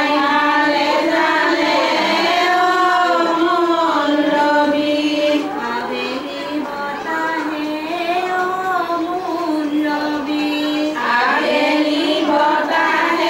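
Women's voices singing a slow traditional Assamese wedding song (biya naam) together, unaccompanied, with long held notes that bend gently up and down.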